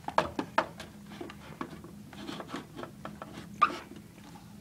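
Handling noise from a plastic electric fan being turned and set down: a string of light clicks, taps and rubs, with one sharper knock near the end.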